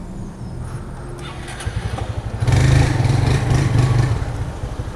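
Honda CG 160's single-cylinder engine running at low revs, then getting louder about two and a half seconds in as the motorcycle pulls away.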